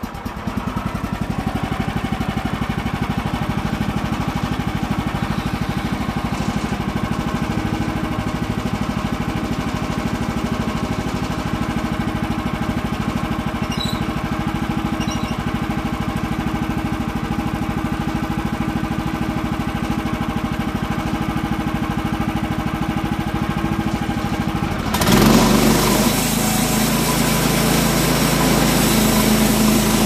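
Kohler gasoline engine of a Woodland Mills HM130MAX portable band sawmill running steadily. About 25 s in it gets louder and the band saw blade starts cutting into a black locust log, adding a loud hiss of sawing.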